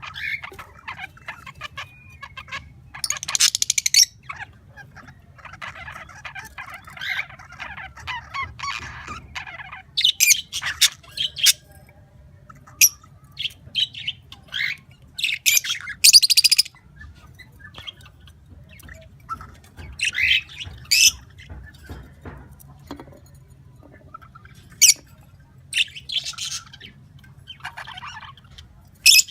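Pet birds calling: loud, sharp squawks at irregular intervals, with a stretch of softer chattering calls a few seconds in.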